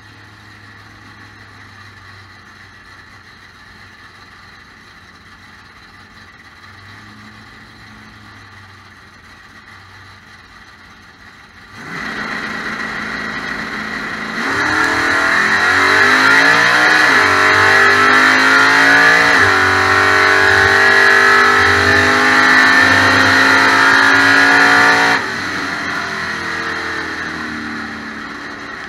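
Drag race car's engine idling at the starting line, then rising to a held higher rev about twelve seconds in. It launches at full throttle a couple of seconds later, its pitch climbing and dropping twice through the gear changes down the track, then drops away suddenly near the end as the throttle is lifted. Heard from inside the car.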